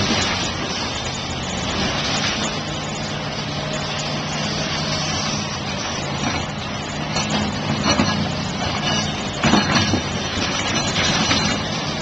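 Backhoe's diesel engine running steadily under load while it tears into a house wall, with a few crashes and cracks of breaking timber and falling debris, the loudest about eight and ten seconds in.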